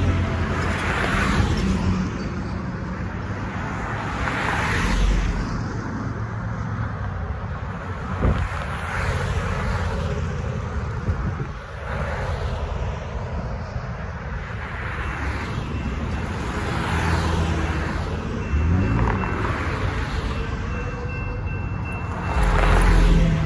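Road traffic passing, one car or truck after another, each going by with a swell of tyre and engine noise, the loudest near the end. Near the end the railroad crossing signal starts ringing as the gates come down.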